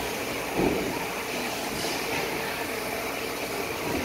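Indoor ice rink ambience: a steady wash of noise with faint indistinct voices, and a brief louder sound about half a second in.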